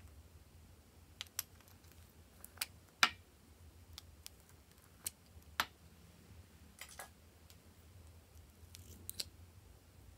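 Small plastic lipstick-shaped pots being handled and their caps pulled off: a dozen or so scattered sharp plastic clicks and snaps, the loudest about three seconds in.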